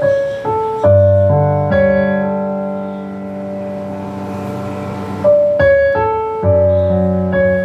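Yamaha CK61 stage keyboard played with both hands: a slow melody over held low chords, with new chords struck about a second in and again around five and a half seconds.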